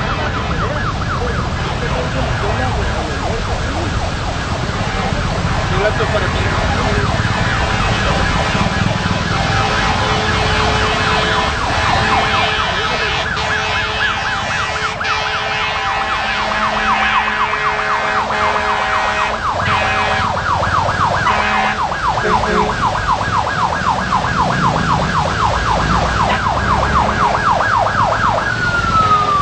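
Emergency vehicle siren on a fast yelp, its pitch sweeping up and down several times a second, over a steady low rumble of traffic. Near the end the siren glides down in pitch.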